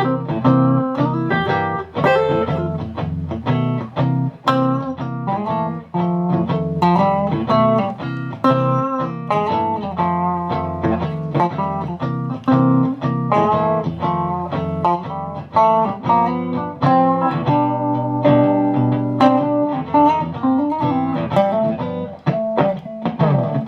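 Electric guitar played through a 10-inch Jensen Tornado speaker in a closed-back cabinet: picked single-note lines over sustained chords, heard through the camera microphone set beside the speaker.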